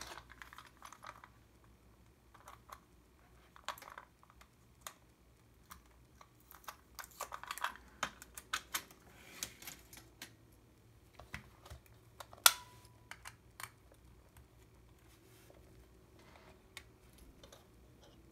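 Scattered light clicks and taps, bunched together in the middle, with one sharp, loud click that rings briefly about twelve seconds in.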